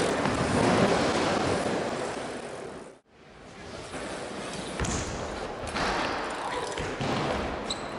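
A loud, steady rush of noise that cuts off suddenly about three seconds in. Then a BMX bike rides a wooden skatepark ramp: tyres rolling, with two sharp thuds of the bike landing, about five and six seconds in.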